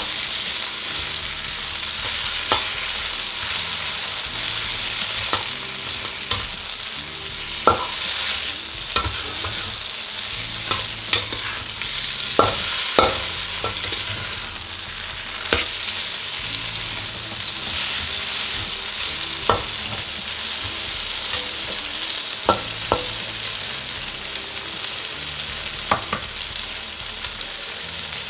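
Wide rice noodles and chicken sizzling in a hot wok as they are stir-fried, with a metal spatula scraping and clinking against the pan now and then.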